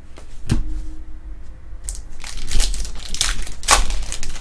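A trading card pack wrapper crinkling and crackling as it is crumpled in the hands, a loud run of crackles in the second half. A single knock comes about half a second in.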